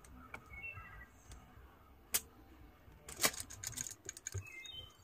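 Irregular sharp clicks and taps, densest and loudest about three seconds in, with a few short, high bird chirps early on and again near the end.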